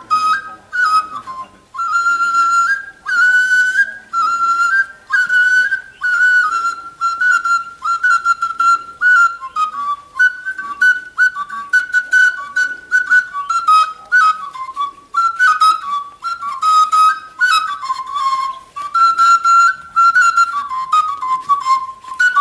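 Igbo oja, a small hand-held wooden flute, played in short repeated phrases, stepping between a few high notes with brief breaks between phrases.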